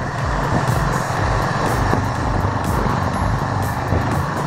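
Model train running along its track, heard from on board: a steady rumble of motor and wheels with irregular light clicks from the wheels on the rails.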